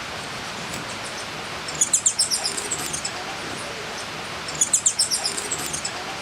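Bird calling in two bouts of rapid, high chirps, about two seconds in and again about four and a half seconds in, over a steady rushing hiss of outdoor ambience.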